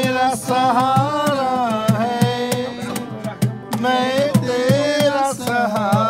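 A man singing a melody to a strummed acoustic guitar, with a cajón tapping out a steady beat underneath.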